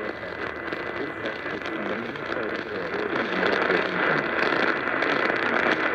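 AM radio reception of WCCO heavily masked by static hiss and crackle, with a voice faintly heard through the noise: the broadcast of an Emergency Alert System required monthly test. The static grows louder about three seconds in.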